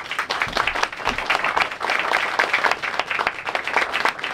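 Audience applauding, many hands clapping at once, breaking out suddenly and continuing steadily.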